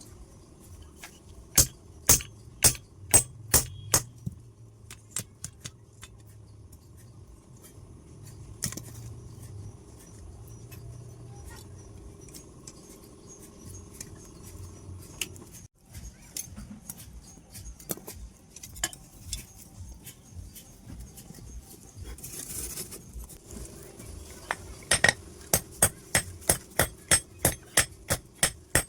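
Blacksmith's hammer striking steel on an anvil: a quick run of about six blows a couple of seconds in, scattered light taps, then a steady run of about three blows a second near the end, over a steady low hum.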